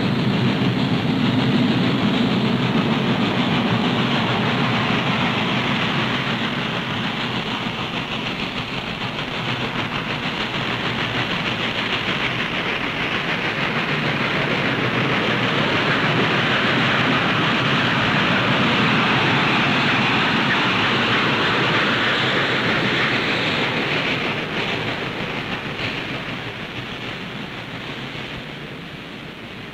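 Norfolk & Western Y6b 2-8-8-2 articulated steam locomotive working a freight train, its exhaust and the cars rolling on the rails making a continuous, loud noise that fades down over the last few seconds.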